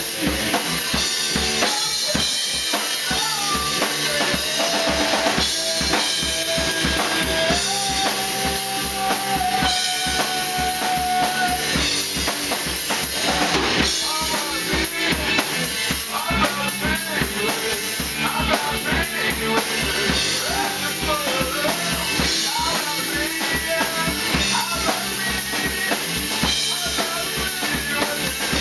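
Rock band playing loud in a small room: a drum kit driving a steady beat under electric guitar and bass, with a male singer's wavering vocal line over the top.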